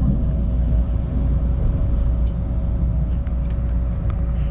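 Inside a moving passenger train carriage: the steady low rumble of the train running, with a constant hum over it and a few faint ticks.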